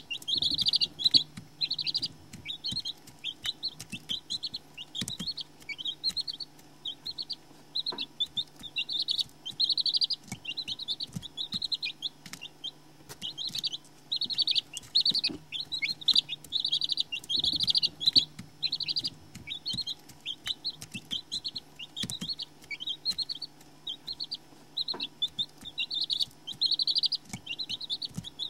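Domestic chicks peeping: quick runs of short, high-pitched peeps, repeated without a break, over a faint steady low hum.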